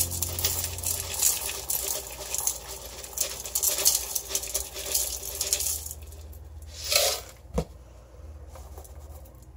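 Sodium hydroxide granules poured from a plastic bottle into a glass cup on a scale: a fast rattling patter of many small pellets hitting glass, which stops about six seconds in. Then a short knock and a sharp click as the bottle is set down.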